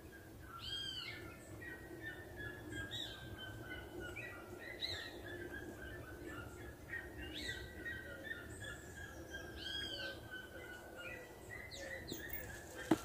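Wild birds calling: runs of quick short chirps repeated throughout, with higher arched calls every couple of seconds. There is a single sharp click near the end.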